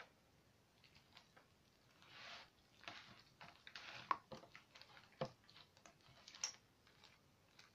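Sticky fluffy slime made with shaving cream, kneaded and stretched by hand: a series of soft wet squelches and smacks, the loudest about four seconds in. The slime is still at the kneading stage, worked until it stops sticking.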